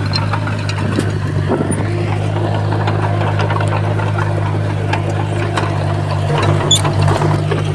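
Heavy earthmoving machine's diesel engine running steadily, with scattered short clicks and knocks over it.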